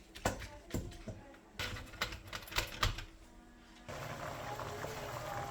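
A few irregular sharp knocks and clicks of kitchen utensils and dishes. About four seconds in, the steady sound of a pot boiling starts abruptly.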